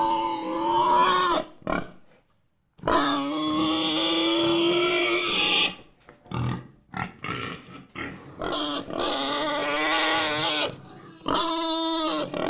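A pig squealing: two long, high, held squeals, then a string of shorter squeals.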